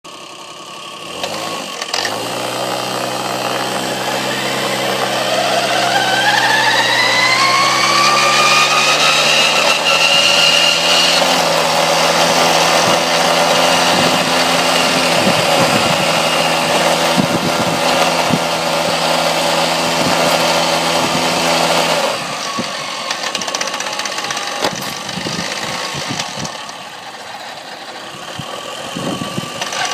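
1994 Tomos moped's two-stroke engine starting about a second in and running, with a weird whine that rises in pitch over several seconds and then holds steady. The running drops to a lower level about 22 seconds in and picks up again near the end.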